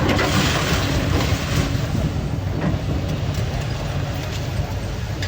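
Heavy demolition machinery engine running steadily, with crashing and crumbling rubble in the first second and a half.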